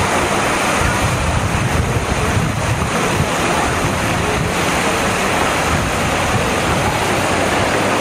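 Fountain jets spraying and splashing into a pool: a steady rush of water, with wind buffeting the microphone.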